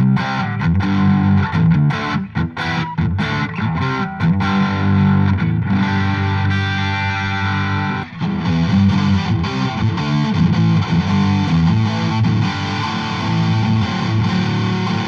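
Electric guitar played through a Vox VT20X Valvetronix modelling amp on its UK Rock preset, with overdriven rock chords: short choppy stabs over the first few seconds, then ringing sustained chords.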